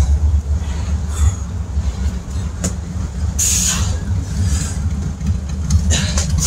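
Wind buffeting the phone's microphone, a steady low rumble, with a brief hiss about three and a half seconds in as a man drops from standing into a burpee push-up.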